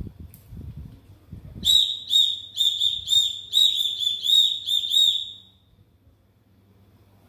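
Small plastic toy whistle blown in about nine short toots, all on the same high pitch, starting about a second and a half in and stopping about two seconds before the end. Low rustling before the first toot.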